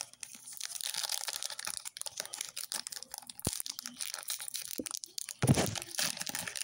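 Foil Pokémon card booster pack wrapper crinkling and tearing as it is pulled open by hand, a stream of small crackles, louder for a moment near the end.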